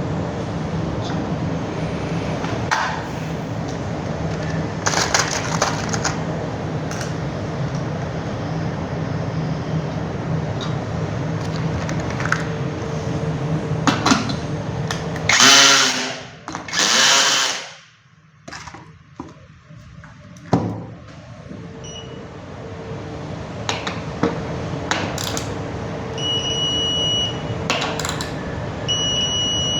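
Steady workshop machine hum with scattered clicks, then a loud power-tool whir, typical of an electric screwdriver or drill, about halfway through. Short high beeps sound several times near the end.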